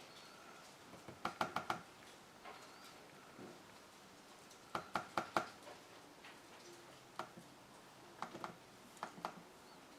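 Computer keyboard keys pressed in quick bursts of three or four clicks, with a single press between them, as a keyboard that is not working at all is tested.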